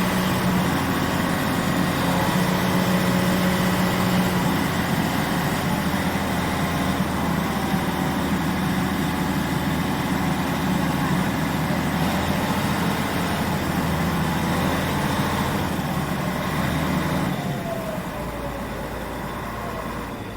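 Motorboat engine running steadily with a low hum. Near the end it drops in level and a pitch slides downward.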